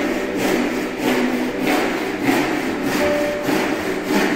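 Handsaw cutting a wooden cladding board, rasping back and forth at about two strokes a second.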